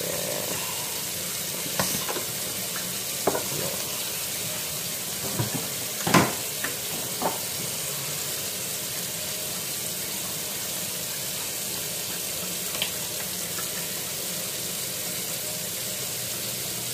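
Shrimp sizzling steadily on a hot electric contact grill, with a few short clicks and knocks of handling, the loudest about six seconds in.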